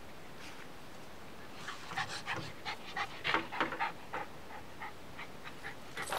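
A dog panting in quick short breaths. They start about a second and a half in and thin out after about four seconds.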